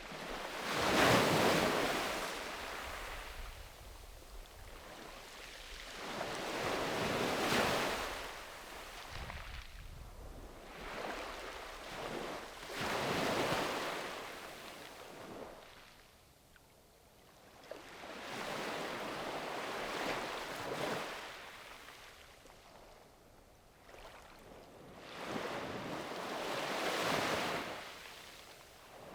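Small sea waves breaking and washing up a sandy beach, each one swelling and fading, about one every five to six seconds.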